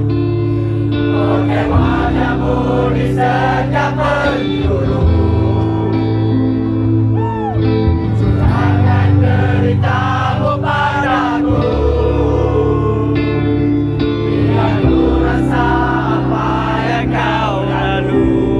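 Live band playing a pop-rock song over sustained chords and bass, with many voices singing together, a crowd singing along with the band.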